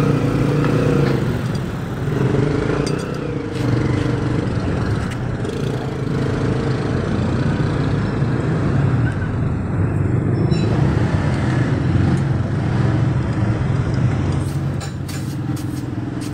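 Motor vehicle engines running in nearby street traffic, a steady low hum throughout, with a few sharp clicks near the end.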